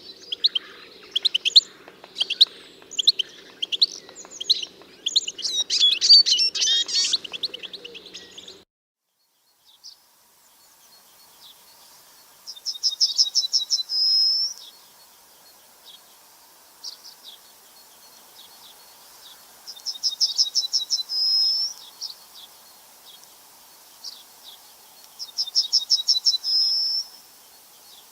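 Songbirds chirping busily, then, after a short break, a single bird repeating a short, rapid trilled song three times, about six seconds apart.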